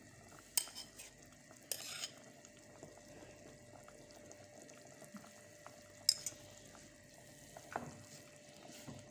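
A metal spoon clinking and tapping a few times against a cooking pot and utensils while olive oil is measured out, with a short hiss about two seconds in. A faint steady hum runs underneath.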